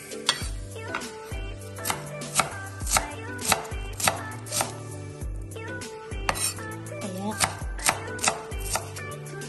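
Chef's knife chopping white onion on a wooden cutting board: the blade strikes the board in sharp knocks about twice a second, in an uneven rhythm.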